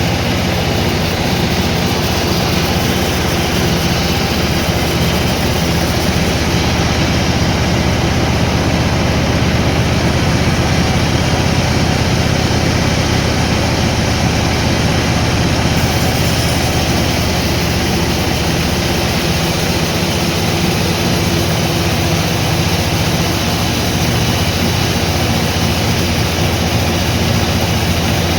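Sawmill machinery running steadily, a loud continuous low hum with no pauses or distinct strikes.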